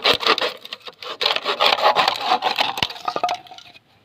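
A plastic bottle being cut with a knife: rapid rasping sawing strokes that die away near the end.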